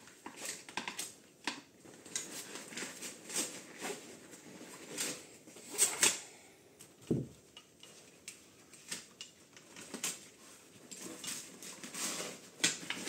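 Irregular clicks, knocks and clatter of plastic buckles, straps and small metal fittings being handled as a rebreather harness and backplate is taken apart, with the sharpest knock about six seconds in and a short dull thump just after.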